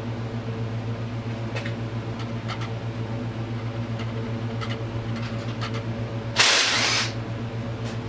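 Steady hum of a ceiling-hung garage unit heater's fan, with light clinks of hand tools on an ATV engine. About six and a half seconds in comes a loud, half-second hiss.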